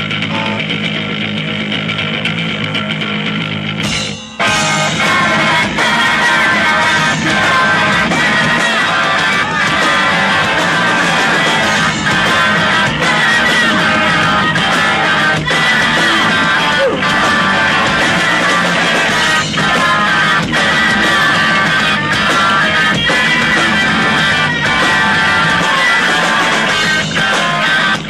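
Rock band playing live, electric guitars to the fore. Held, ringing guitar chords for the first few seconds, a brief break about four seconds in, then the full band comes back in louder with a steady drum beat.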